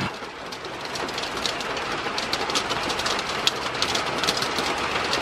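Rain falling steadily, a hiss that builds slightly, with many separate drops ticking sharply close by.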